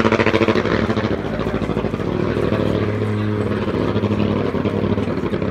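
A motorcycle engine running steadily at idle, with a rapid, even beat of firing pulses that is a little louder in the first second.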